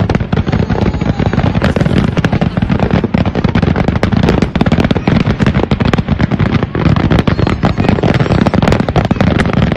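Fireworks finale barrage: aerial shells bursting continuously, a dense, unbroken run of loud booms and crackles many times a second with no pause.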